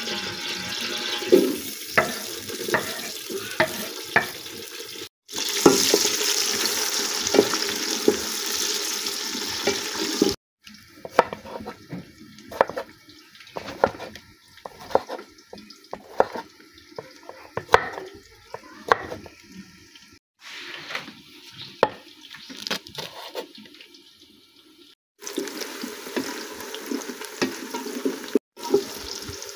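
Sliced onions sizzling loudly in hot oil in an aluminium pot. In between, a knife cuts tomatoes on a wooden board in a run of sharp, separate taps. Near the end the onions sizzle again as they are stirred.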